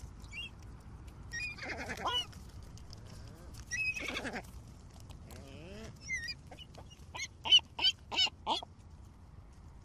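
Gulls calling: several wavering cries spaced a second or two apart, then a quick run of four short, loud calls near the end.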